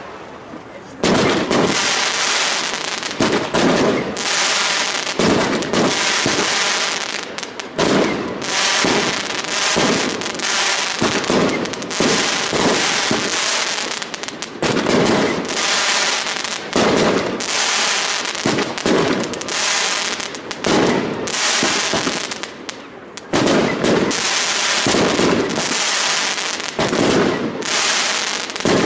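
Aerial fireworks display: a dense, almost unbroken barrage of shell bursts and crackling stars, starting about a second in, with one brief lull about two-thirds of the way through.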